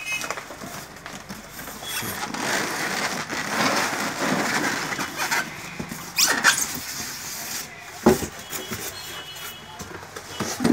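Polystyrene foam packing squeaking and scraping against the cardboard carton as it is worked loose and lifted out, with a couple of sharp knocks about six and eight seconds in.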